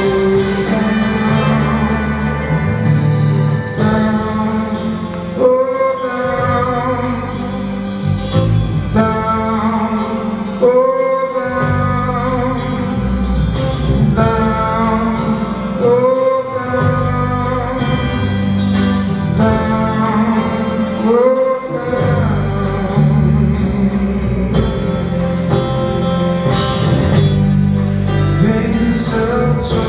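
Live rock music: a male singer holds long notes, each phrase opening with an upward slide about every five seconds, over electric guitar, bass guitar and drums, with a symphony orchestra on stage.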